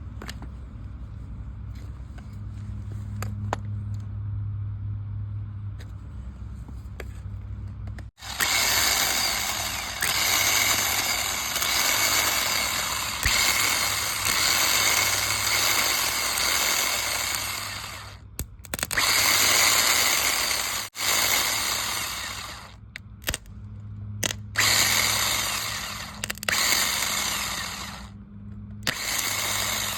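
A low steady hum, then a motor whirring loudly in repeated bursts of a few seconds that stop and start.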